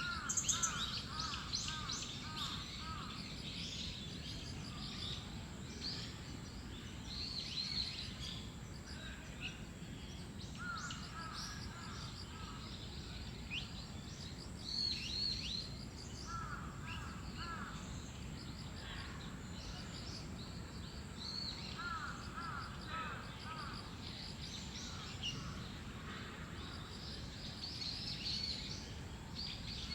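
Several birds calling and singing: high chirps and short whistles come throughout. A lower-pitched bird gives runs of five or six short repeated calls at the start and three more times, over a steady low background rumble.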